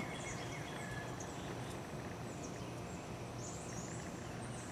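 Quiet outdoor background hush with a few faint, high bird chirps about three to four seconds in.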